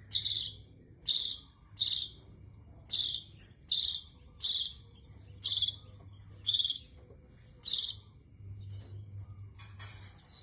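Long-tailed shrike giving about nine short harsh rasping calls, roughly one a second, which are taken for the bird coughing. Near the end come two quick falling whistled notes.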